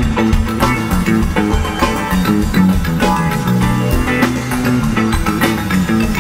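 Live band playing an instrumental jam: electric guitar, electric bass and drum kit.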